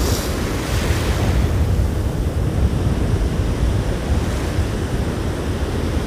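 Sea surf breaking and foam washing in over the shallows, with strong wind buffeting the microphone as a low rumble. A wash of hiss is louder in the first second.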